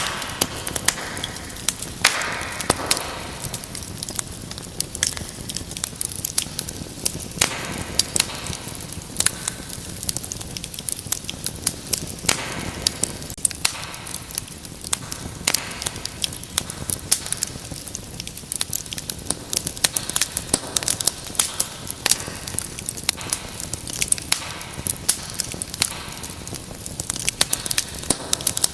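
Wood fire crackling steadily: a constant run of sharp pops and snaps over a soft rushing hiss, with brief louder hissing flare-ups now and then.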